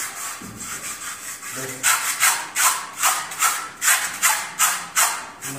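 A hand brush scrubbing a cow's hide in quick, even strokes, about three a second, starting a couple of seconds in.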